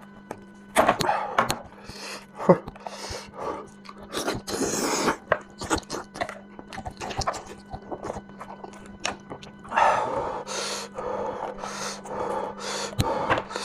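Close-up sounds of a person eating spicy lamb head: chewing meat with irregular wet smacks and sharp clicks.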